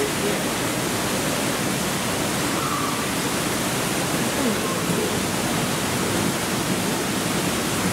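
Steady, even rushing noise with no breaks or sudden sounds, like running water.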